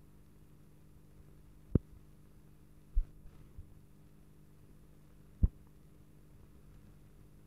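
Steady low hum with three sharp thumps, about two, three and five and a half seconds in, and a few fainter knocks just after the second.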